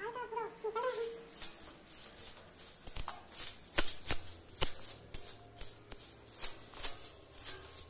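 Soft grass broom sweeping dust off tiled stair steps: brisk swishing strokes, roughly one or two a second.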